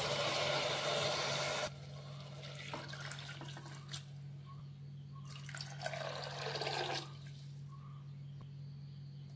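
Soaked chana dal and its water poured from a glass bowl into an aluminium pressure cooker, a steady splashing pour that stops about two seconds in. After a pause, more water is poured in for about a second and a half, the pour dropping in pitch as it ends.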